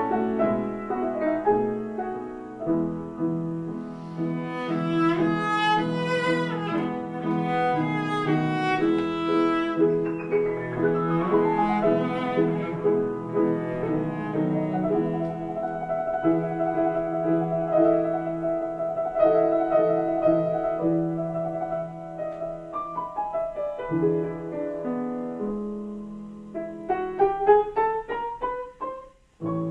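Cello and piano playing classical chamber music together, the cello bowing long held notes. In the last few seconds the cello drops out and the piano plays a rising run alone.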